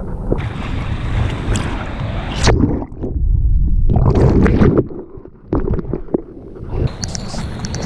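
Sea water rushing and splashing over a surfboard-mounted action camera as the surfer paddles and duck-dives under whitewash, turning muffled for a moment midway while the camera is under water.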